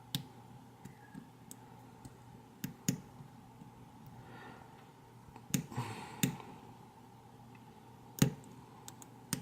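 Lock pick and tension wrench working the pin stack of an ACE A527 padlock's American-style core: scattered irregular clicks, some sharp and loud, with a brief scrape about six seconds in. This is the clicking and snapping of serrated pins catching at the shear line during single-pin picking.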